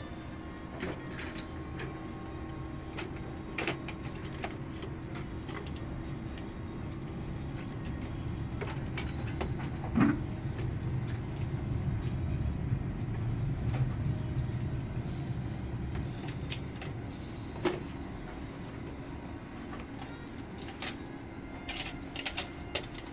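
Steady hum of a facial vacuum (pore suction) machine's motor running, growing a little louder midway, with scattered light clicks and one sharper knock about ten seconds in as the wand is handled.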